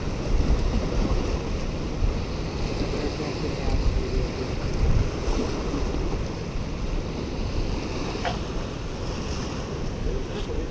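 Waves washing and breaking against the rocks of a jetty, a steady surf wash, with wind buffeting the microphone.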